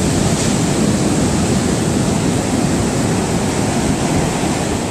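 Ocean surf breaking on a beach: a loud, steady wash and rumble of waves.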